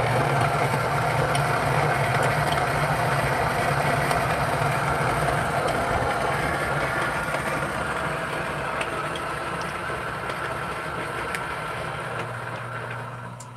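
Niche coffee grinder's motor running as it grinds a dose of espresso beans: a steady hum with the crunch of grinding. It gets gradually quieter and drops off near the end.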